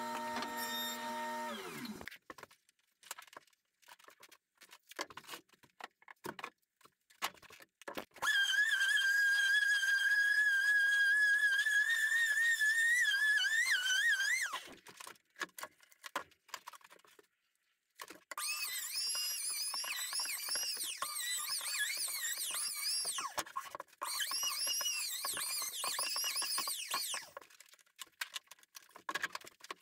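Woodworking power tools running in short spells with abrupt cuts between them: a steady high whine from about 8 to 14 seconds, then a wavering high whine from about 18 to 27 seconds, with scattered knocks and clicks in the gaps.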